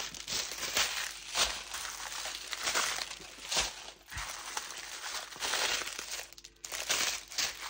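Small plastic packets of diamond-painting drills crinkling and rustling irregularly as hands rummage through and shift them around.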